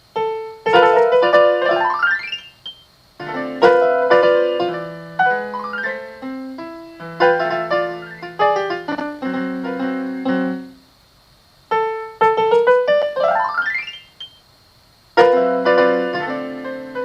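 Solo piano playing an original instrumental piece: chords and melody broken by quick upward runs, with two short pauses in the second half.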